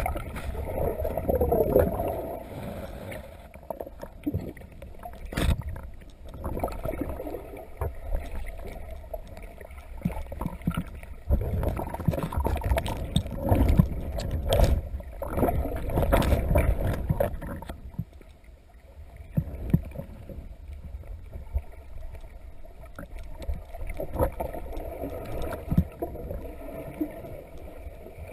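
Muffled underwater sound picked up by a submerged camera: irregular low rumbling of water moving around it, with a few sharp knocks.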